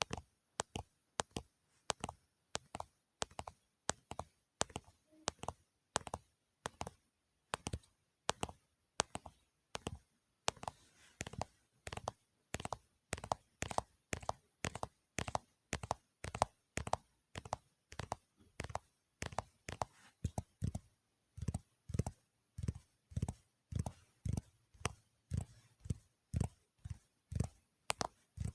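ASMR tapping on hard objects: sharp, separate taps at about two to three a second, often falling in quick pairs, with silence between them.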